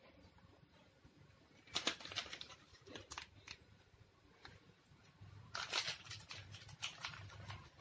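Plastic snack wrapper crinkling as it is handled, in two spells of crackles, the first nearly two seconds in and the second about five and a half seconds in.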